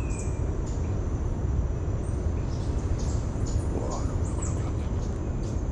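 Birds calling in the forest with many short, high, falling chirps scattered throughout, over a steady low rumble.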